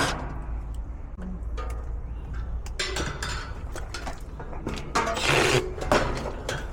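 Scattered clicks and rattles of hands and tools working on an air-conditioning unit, taking off a cover or connector to get at the compressor's terminals, over a steady low hum.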